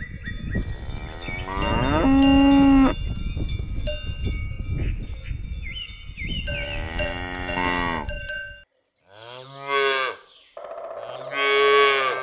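Cows mooing, several long low calls one after another, with cowbells clanking in the first part. The sound drops out briefly about three-quarters of the way through, and more mooing follows.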